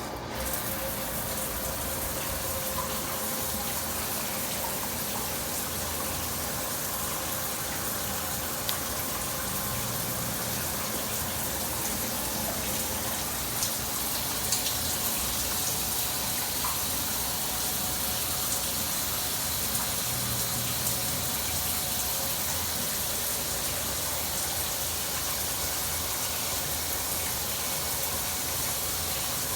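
Rain shower head running, its spray falling in a steady, even hiss that comes on abruptly right at the start.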